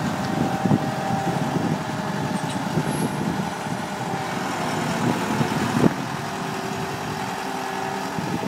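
Diesel engine of a Dynapac CA252 padfoot roller running steadily as the roller is manoeuvred, with a single sharp clunk about six seconds in.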